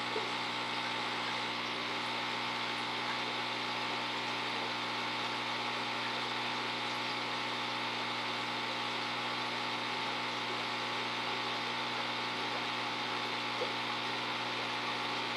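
Steady hum and hiss of running aquarium equipment, even and unchanging, with a couple of faint ticks.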